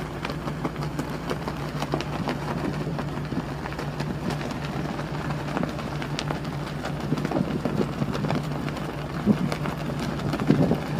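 Wind buffeting the microphone with crackles, over a steady low hum of ship's machinery; the gusts get stronger near the end.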